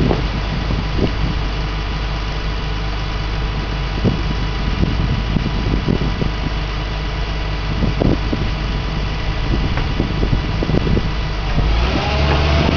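Diesel engine of a Doosan DX235LCR excavator running steadily, with a few short knocks along the way. Near the end the engine gets louder and its note rises, as it comes under load.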